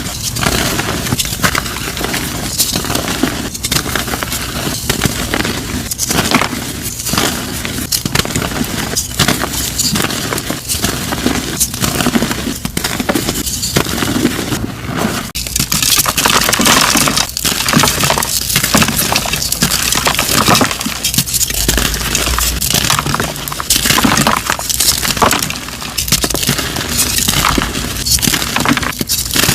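Blocks of dyed gym chalk being crushed and crumbled: a dense, continuous run of crunchy, crispy crackling.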